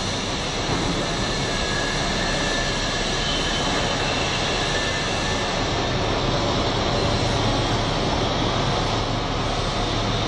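Machinery running steadily: an even, loud noise with a low hum under it.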